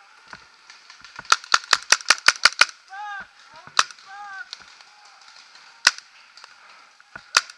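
Paintball markers firing: a rapid string of about eight shots, roughly five a second, then single shots spaced a second or two apart.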